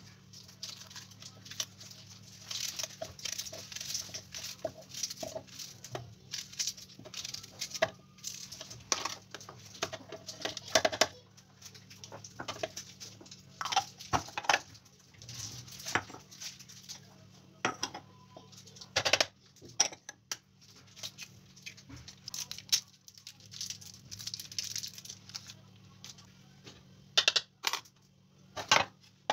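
Scattered clicks, taps and rustles of kitchen prep: a knife cutting zucchini, spoons tapping, and ingredients dropped into the plastic bowl of a food processor that is not running. A faint steady low hum lies underneath.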